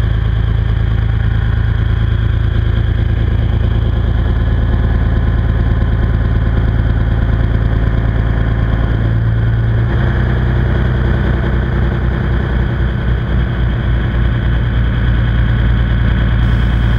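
A trawler's engine running steadily under way, its note shifting about nine seconds in.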